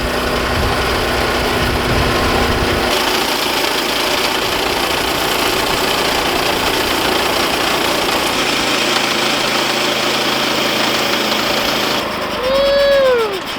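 Woodland Mills HM122 portable band sawmill running at wide-open throttle, its gas engine driving the band blade through a log. Near the end a short whine rises and falls in pitch.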